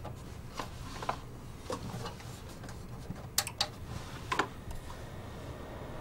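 Low steady hum of a desktop PC's cooling fans running as the rebuilt machine powers on, with a few light clicks and taps scattered through.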